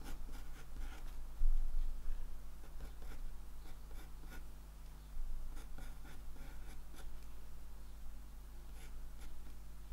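Pencil sketching on watercolour paper: short, irregular scratching strokes as the lines are drawn. There is a soft low bump about a second and a half in.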